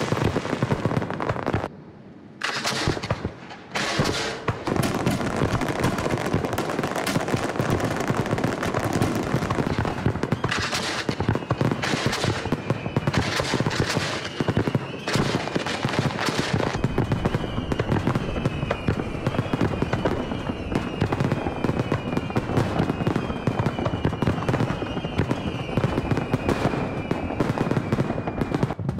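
Fireworks display: dense, continuous crackling and bangs of bursting aerial shells, with a brief lull about two seconds in. In the second half, thin high tones slide slightly downward again and again over the crackle.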